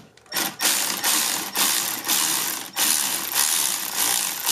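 A ratchet clicking as it backs out the bolt of a valve spring compressor bolted to a Honda H23 cylinder head, releasing the compressed valve spring. It runs in several stretches with short breaks, starting about half a second in.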